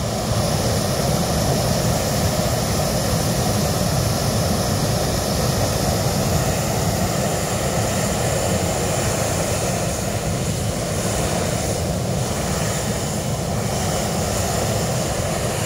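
Hot air balloon propane burner firing in one long continuous blast, a steady loud rushing noise that starts at the very beginning, heating the air in the upright envelope before lift-off.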